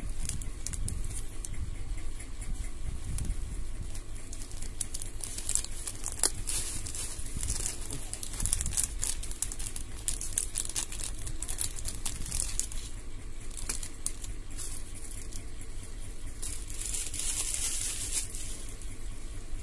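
Clear plastic parts bag from a Tamiya Mini 4WD kit crinkling as it is handled, in irregular crackles that are busiest around the middle and again near the end.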